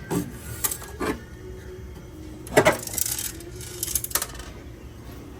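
Small metal parts and tools clinking and knocking as they are handled: several sharp knocks scattered through, the loudest about two and a half seconds in and a quick cluster near four seconds.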